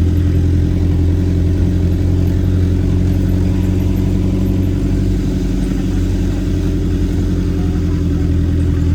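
Engine of an off-road vehicle running steadily with a deep, even hum, the pitch holding level throughout.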